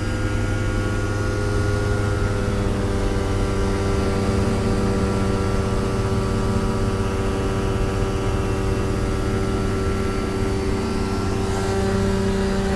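Rotax 582 two-stroke twin engine and propeller of a Kitfox Model 2 ultralight running at steady power, heard from inside the cabin as a continuous drone.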